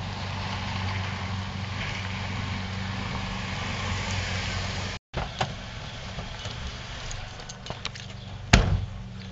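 A car running: a steady low engine hum under a rushing noise. It cuts out for a moment about five seconds in, and a sharp click comes near the end.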